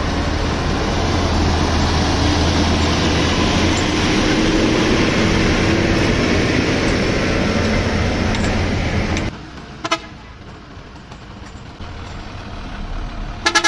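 Diesel cargo truck driving past close by on a gravel road, with engine and tyre noise, which drops off abruptly about nine seconds in to a fainter engine hum. A short horn toot sounds near the end.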